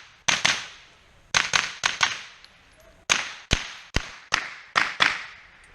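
Rapid rifle gunfire: about a dozen sharp shots fired in quick, irregular clusters, each with a short echoing tail.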